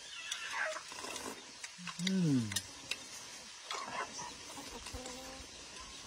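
Two people eating with spoons off plates: light clicks of spoons on crockery and blowing or slurping at hot food. About two seconds in there is one low vocal sound that falls in pitch over nearly a second.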